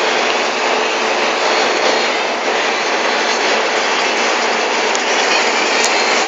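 Cabin noise of a Higer 6856 bus running at about 120 km/h: engine, tyre and wind noise blended into a loud, steady rush.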